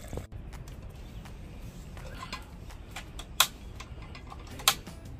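A few sharp clicks and knocks over a steady low background noise, two of them much louder, about three and a half and four and three-quarter seconds in.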